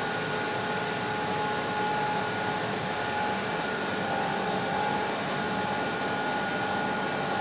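Steady machine hum and hiss with a few constant whining tones, as from workshop machinery running.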